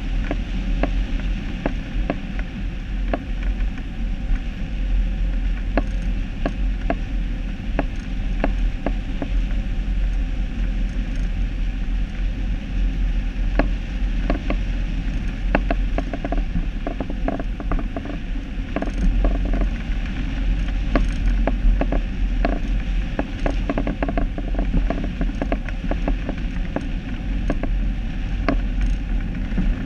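A steady low rumble with many irregular clicks and creaks throughout, as of some mechanism or gear working.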